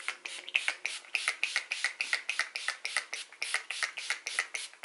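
Urban Decay All Nighter setting spray pumped rapidly, a quick run of short mist sprays, about five a second, setting a face of makeup.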